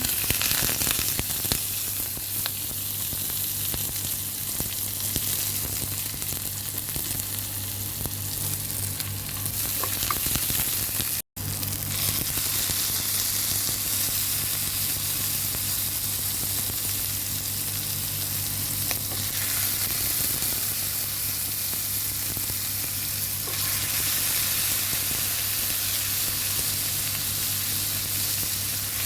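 Food frying in hot oil in a pan: a steady sizzle with stirring. The sound cuts out for a moment about eleven seconds in.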